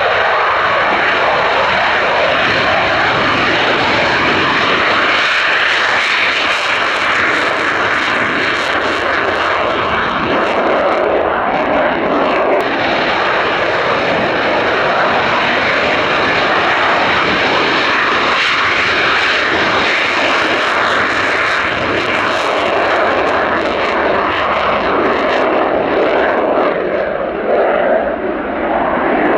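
Eurofighter Typhoon's twin EJ200 jet engines running, a loud steady noise that dips briefly near the end.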